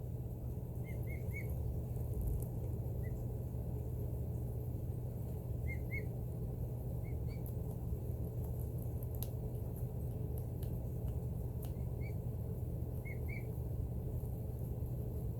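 Emu chicks giving short, soft whistling peeps, two or three at a time every few seconds, over the steady low hum of a heat vent blowing warm air.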